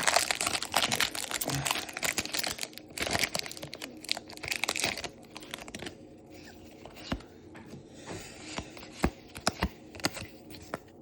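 Foil trading-card booster pack wrapper being torn open and crinkled, a dense crackling for about five seconds. Then a few scattered sharp clicks as the cards are handled.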